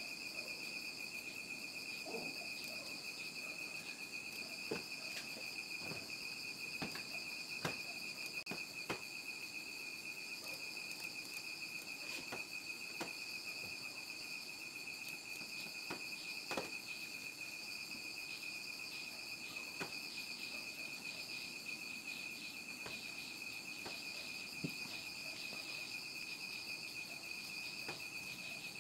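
Crickets trilling steadily in a high, continuous pitch, with a few short clicks scattered over it.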